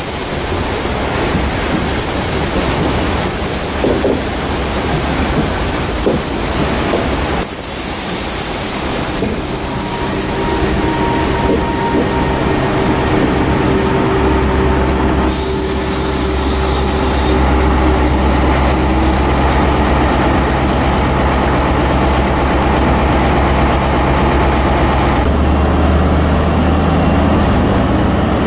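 A diesel train running past close by: a continuous loud rumble of wheels on rail, with a steady engine drone that comes in about halfway through and changes pitch near the end.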